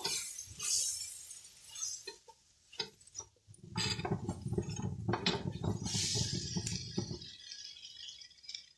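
Spatula clinking and scraping against a non-stick wok while stirring curry powder into fried onions and tomatoes: scattered taps at first, then about three seconds of steady scraping from a little before the middle.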